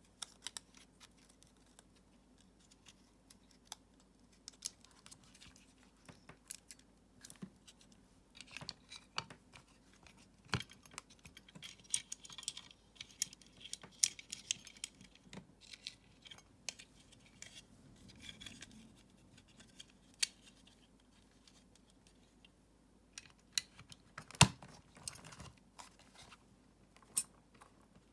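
Small hard parts being handled and worked by hand: irregular clicks and taps with brief scraping in between. The loudest is a sharp click near the end.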